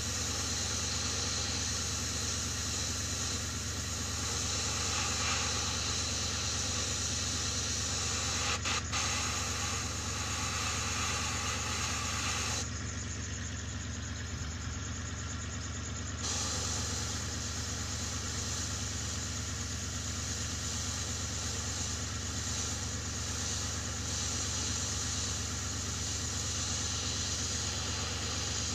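Gravity-feed airbrush hissing steadily with air, over the low hum of an air compressor running. The hiss thins for a few seconds about halfway through, and there are a couple of faint clicks shortly before.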